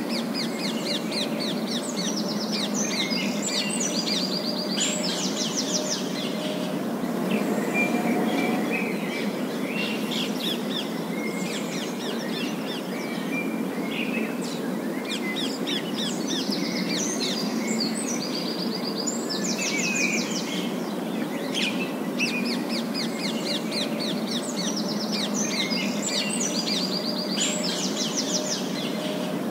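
Flock of feral rose-ringed parakeets calling in bursts of rapid, repeated high squawks every few seconds, over a steady low rumble of street traffic.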